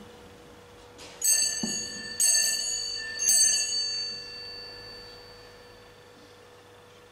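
Altar bells rung three times, about a second apart, at the elevation of the host during the consecration. Each ring is a cluster of high, bright tones that fades away over a couple of seconds after the third.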